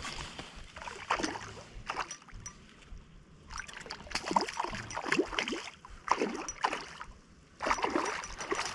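A hooked stocked trout splashing at the water's surface close to shore, in short, irregular bursts.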